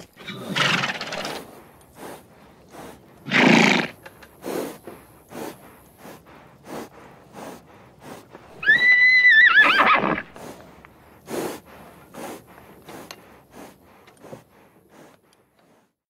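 Horse hooves clip-clopping in a steady rhythm about twice a second, with two short noisy snorts in the first few seconds. Just past the middle comes one loud high whinny, about a second and a half long, that wavers at the end. The hoofbeats fade out near the end.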